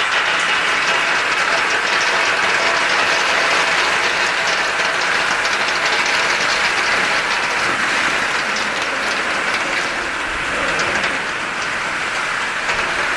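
Walnuts in the shell clattering and rattling as they tumble inside the rotating perforated steel drum of a three-grade walnut sizing machine, heard close up from inside the drum. A dense, steady rattle of many small knocks, easing slightly about ten seconds in.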